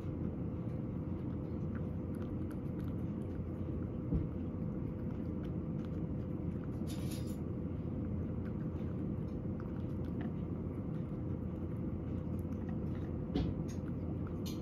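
A cat eating from a ceramic bowl, with faint licking and chewing clicks over a steady low hum. Two soft knocks, about four seconds in and near the end.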